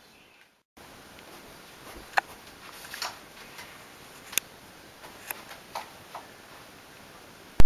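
Scattered light clicks and taps of small objects being lifted and set back down on a wooden dresser while it is dusted, in a quiet small room. Loud music starts abruptly at the very end.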